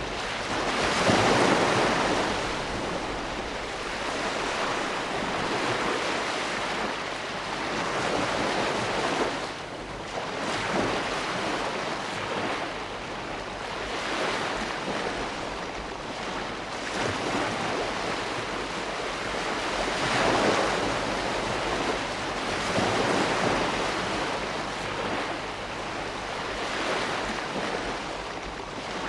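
Ocean waves breaking and washing on a shore: a continuous surf rush that swells with each breaker every few seconds.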